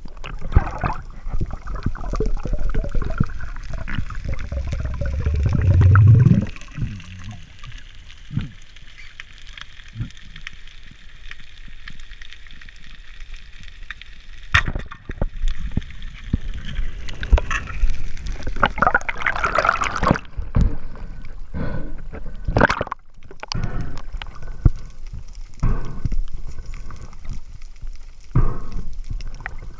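Underwater sound through a diving camera's housing: water movement and gurgling, with a faint steady whine through the first two-thirds. Scattered sharp clicks and knocks come through the second half.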